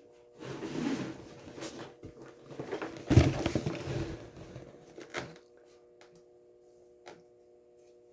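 Crackling and rustling of a Hot Wheels blister-card package being handled and opened, in two bursts, with a sharp knock about three seconds in and a few light clicks afterwards.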